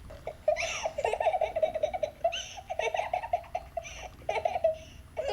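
A baby laughing in a series of short giggling bursts, played back through an iPhone's speaker.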